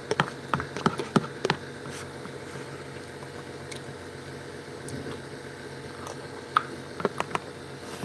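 A man chewing a mouthful of spaghetti, with short wet mouth clicks and smacks in the first second or so and a few more near the end, over a steady low room hum.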